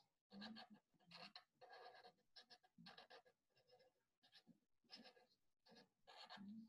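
Felt-tip sketch pen drawing lines on paper: a quick run of faint, short strokes, about two a second.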